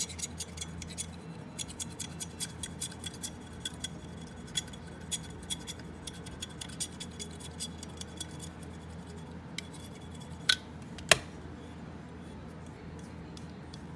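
Light, irregular clicking and scraping as a piece is worked off a small trinket canister, with two louder sharp clicks about ten and eleven seconds in.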